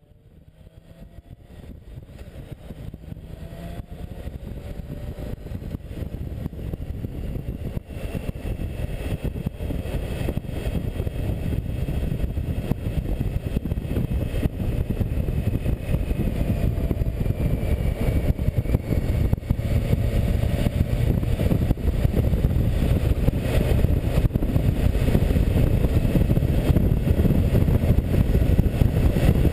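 Riding sound of a BMW K1600GTL motorcycle picked up by a GoPro on the tank cover: heavy wind rumble over the inline-six engine. It grows steadily louder as the bike gathers speed.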